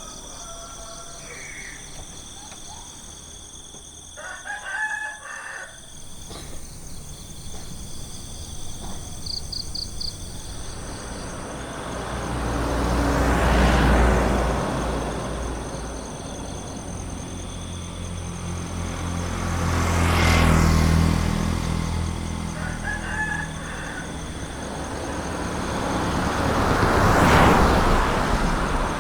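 Three vehicles pass one after another, each swelling up and fading away, with the passes about six to seven seconds apart. Steady insect trilling runs underneath, and a rooster crows about five seconds in.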